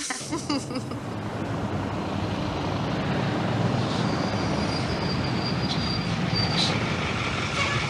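Heavy diesel trucks rumbling as they drive into a truck stop, with a high-pitched squeal lasting a couple of seconds about halfway through.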